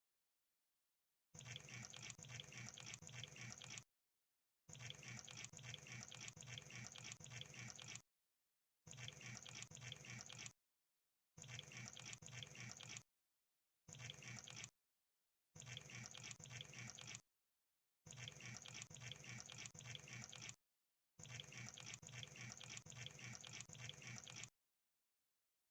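Crab sound effect: bursts of rapid clicking and crackling, eight of them in turn, each one to three seconds long, broken by short gaps of silence.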